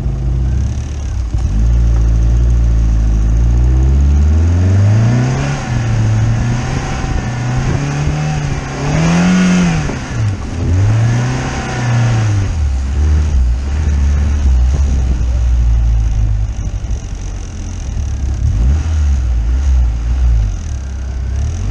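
A car engine is revved up and down again and again as the car is driven hard, its pitch rising and falling in repeated swells. The biggest surge comes about nine seconds in, and the engine settles lower and steadier later on.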